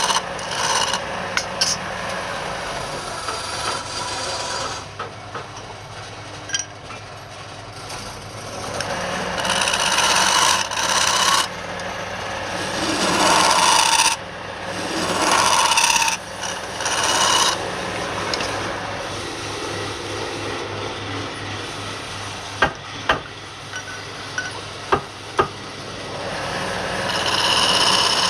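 Wood lathe running with a low steady hum while wood is scraped against the spinning workpiece in uneven swells. Several sharp clicks come late on.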